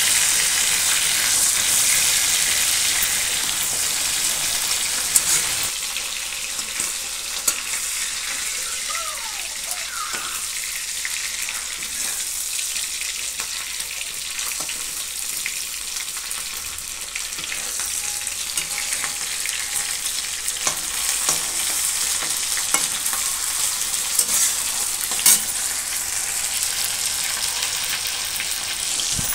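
Rohu fish pieces shallow-frying in a little hot oil in a metal kadai, with a steady sizzle. A spatula turns the pieces, with a few sharp taps against the pan.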